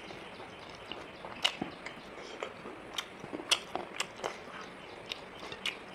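Close-up eating sounds of a chicken-wing curry meal: chewing and biting, heard as a run of irregular short clicks.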